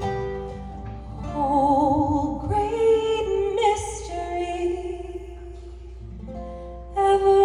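A woman singing long held notes with vibrato over a low sustained musical drone, with no words picked out.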